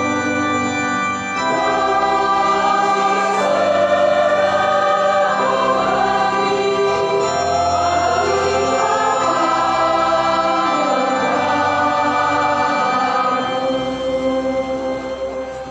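Church choir singing a hymn with organ accompaniment, the voices coming in over held organ chords about a second in and the sound fading away near the end.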